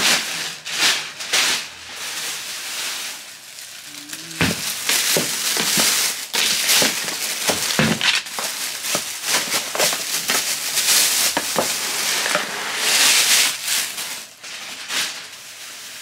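A bag and clothes rustling and crinkling, with many scattered light knocks, as laundry is handled and loaded for washing.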